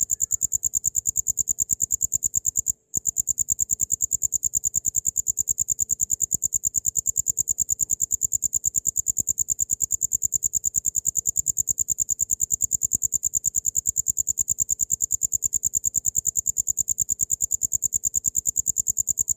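Cricket chirping: a loud, high-pitched, fast and evenly pulsed trill that goes on without pause except for one brief break about three seconds in.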